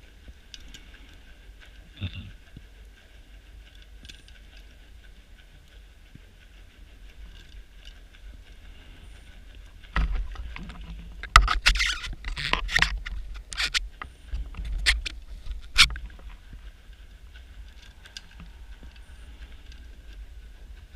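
Scuba diver breathing out through a regulator underwater: a loud, irregular burst of bubbling rumble and crackle lasting about six seconds, starting about halfway through, over a steady faint underwater hiss.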